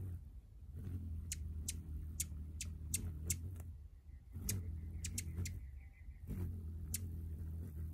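Hummingbird wings humming as it hovers at a nectar feeder, a low steady hum that breaks off briefly twice. About a dozen short, sharp high chips sound over the hum.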